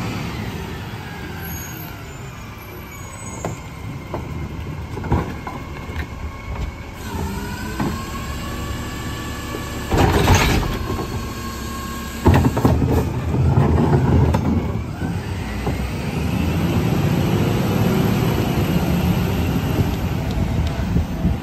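McNeilus rear-loader garbage truck working: the diesel engine revs up and down as the cart tipper lifts and dumps a trash cart, with a loud clatter about ten seconds in and more banging a couple of seconds later. Near the end the engine revs up steadily as the truck pulls away.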